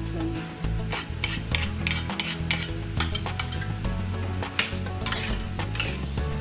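Metal spatula scraping and clinking against a stainless steel wok as diced potato, carrot and ground pork are stir-fried, with a light sizzle of the food in the pan. The strokes come several times a second, unevenly.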